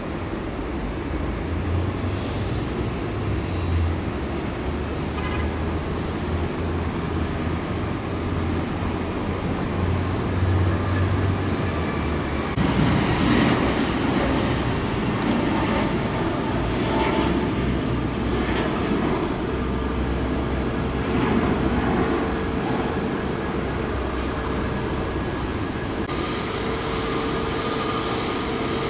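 Steady vehicle traffic noise with engines passing. It grows heavier about halfway through, with several louder passes.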